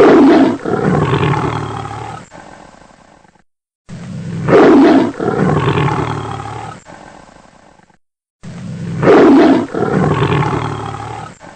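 Tiger roar, repeated three times with a short silence between, the same recording looped. Each roar peaks loudly at the start and trails off over about three seconds.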